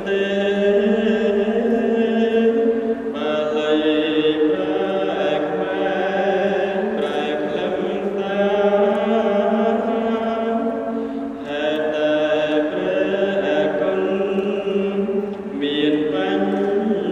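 A Buddhist monk chanting in a long, steady, melodic monotone into a handheld microphone, with a few short pauses for breath.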